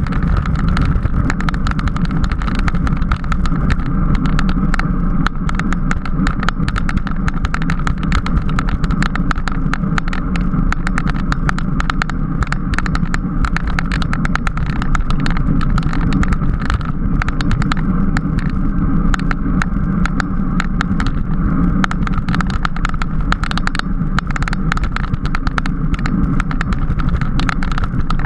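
Steady wind and road noise from a bicycle ridden at race speed in a criterium, with constant rapid clicks and rattles over it.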